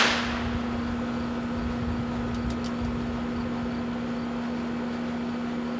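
The echo of a .22 rimfire revolver shot fading at the start, then a steady background hum with a constant low tone. A couple of faint clicks about two and a half seconds in.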